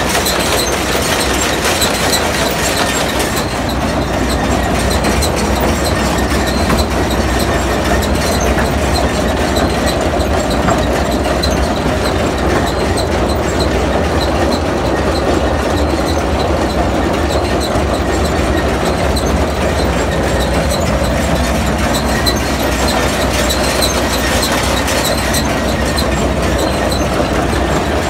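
New Holland 848 round baler running, its bale-chamber chains and slats turning with a steady, dense rattle over a low, even hum.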